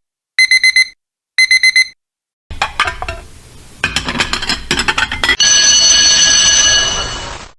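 Digital alarm clock beeping in quick bursts of four or five beeps, twice. Then about three seconds of clattering and knocks, and a steady loud hissing noise with a faint whine that fades out near the end.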